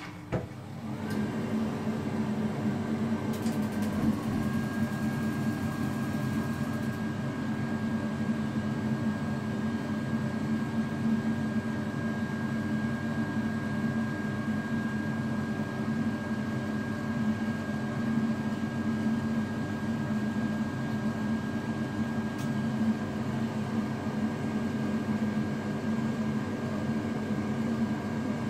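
Water rushing through a BR-9812 shower mixer, turned on with a click at the start and swelling over the first second. Over the rush runs a steady hum and a thin whine that rises briefly and then holds: the small water turbine that powers the mixer's temperature display, spinning while water flows.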